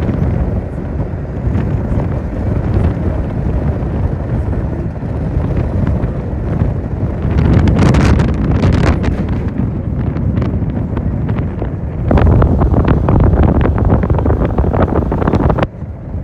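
Wind buffeting the microphone over the low rumble of a moving vehicle. Two louder gusty, crackling stretches come in the middle and towards the end, the second cutting off abruptly.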